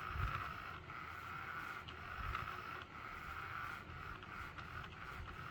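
Small electric motor of a battery-powered spinning cat toy (floor whirly bird) running with a steady, slightly wavering whine, broken by a couple of soft low thumps.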